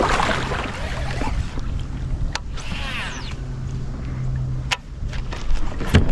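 Sounds on a small fishing boat: a short rush of splashing water at the start over a steady low hum, then a brief whirring sweep and a few sharp knocks and clicks.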